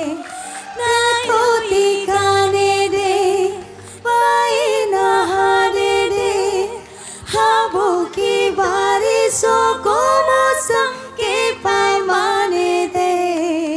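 Two women singing a Hindi song as a duet into handheld microphones, in long ornamented lines that slide between notes, over a soft accompaniment. There are short breaks between phrases about four and seven seconds in.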